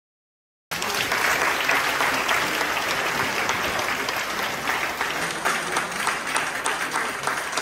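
Audience applauding, the clapping cutting in abruptly just under a second in and carrying on steadily.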